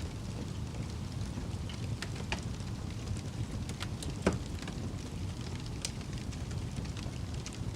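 Fire burning with a steady low rumble and scattered sharp crackles and pops, the loudest pop a little past the middle.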